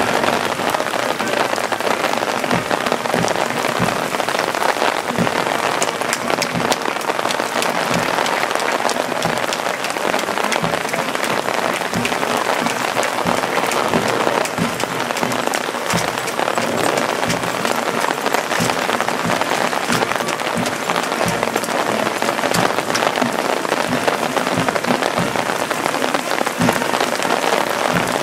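Steady heavy rain, with many irregular sharp drop hits pattering on an umbrella held over the microphone.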